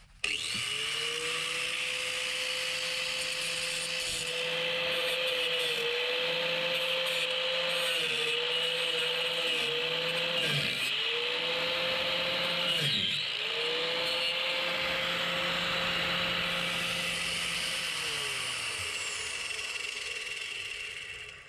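Angle grinder with a cutoff disc starting up and cutting into a rusted screw, its motor note dipping again and again as the disc bites, twice sharply near the middle. The motor winds down near the end.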